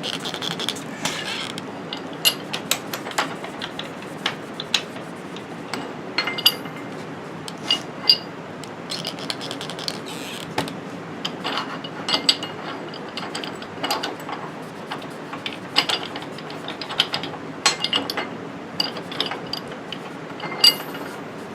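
Metal C-clamp parts being handled and wiped clean, giving irregular clicks, knocks and short ringing clinks, over the steady whir of shop ceiling fans.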